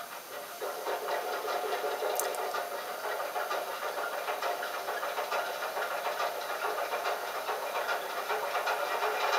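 Model diesel switcher locomotive's onboard sound system playing a diesel engine running at idle. The rattly engine sound comes on right at the start and runs steadily, growing a little louder toward the end.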